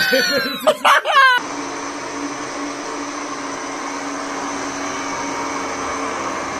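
A few short, high, wavering calls. About one and a half seconds in they cut off abruptly, and an Electrolux kitchen machine's motor is heard running steadily, driving a blender jug.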